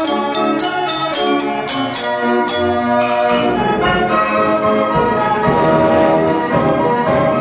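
Wurlitzer 165/166 band organ playing a tune from its music roll. For about the first three seconds its glockenspiel bells play separate struck notes over the pipes; after that the pipes take over in a fuller, sustained texture.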